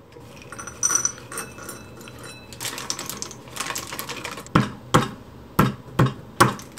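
Wooden pestle working nuts in a stone mortar. First comes a plastic bag rustling as whole almonds are tipped in, then from about four and a half seconds sharp pestle strikes cracking the hard almonds, about two a second.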